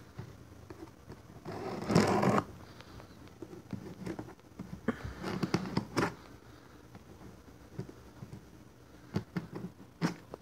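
A cardboard box being handled and opened: a brief rip of tape or cardboard about two seconds in, then scraping and a few sharp clicks and knocks.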